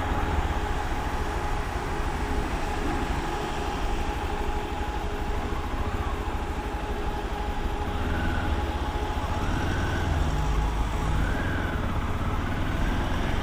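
Motorcycle riding along, with a steady engine and wind rumble on the camera microphone and a thin steady whine over it. From about eight seconds in, a faint siren wails up and down.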